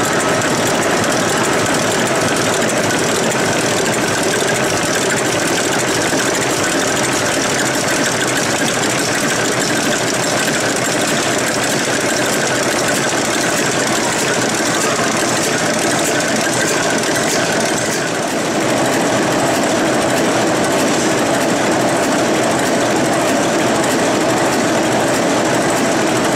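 Werkspoor TMAB 278 eight-cylinder trunk-piston diesel engine, freshly overhauled, running steadily with a dense, even mechanical clatter.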